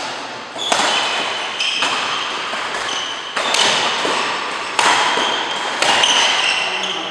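Badminton rackets striking a shuttlecock in a doubles rally: about five sharp hits roughly a second apart, each ringing on in the reverberant hall. Short squeaks of court shoes come between the hits.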